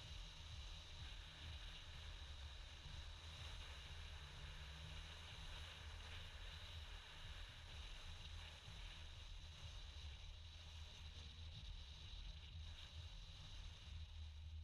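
Near silence: a faint steady low hum and hiss, with no distinct sounds.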